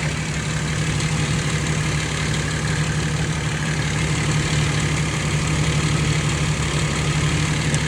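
1991 Jeep Wrangler YJ engine idling steadily.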